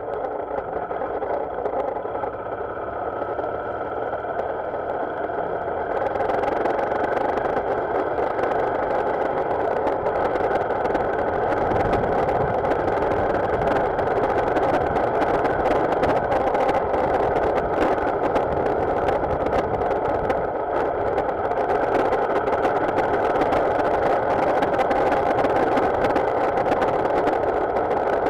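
Motorcycle engine running steadily under way. About six seconds in it gets louder and a rushing hiss joins it, which then holds steady.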